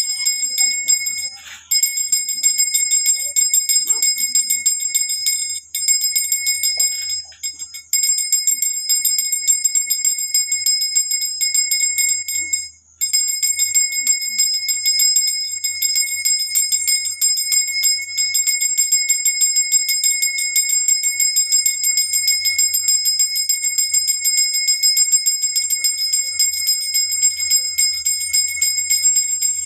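Brass puja hand bell rung rapidly and continuously, a dense jangling ring with a few brief pauses, accompanying the aarti offering.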